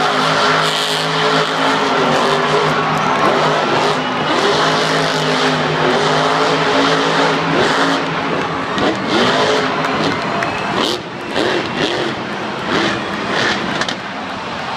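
Metal Mulisha monster truck's engine revving up and down repeatedly, heard from the stadium stands. Sharp crackles and dips come in over the last few seconds.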